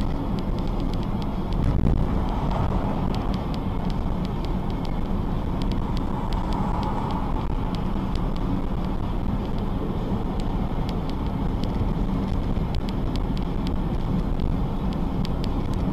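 Steady road and engine noise inside a moving car, picked up by a dash-cam microphone, with many faint scattered ticks.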